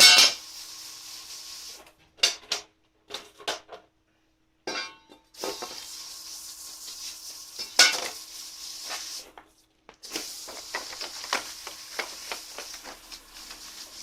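Sooty steel fire-box parts being washed with water: a hissing wash of water with frequent clinks and scrapes of metal, in several short stretches broken off by sudden silences.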